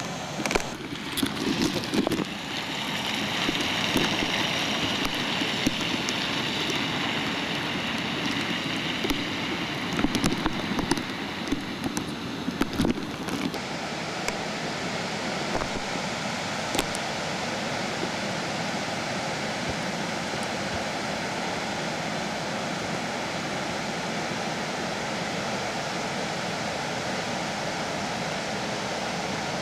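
Floodwater rushing through a desert wash: a steady, even rush of moving water. Irregular knocks and bumps sound over it for roughly the first half, then stop, leaving only the water.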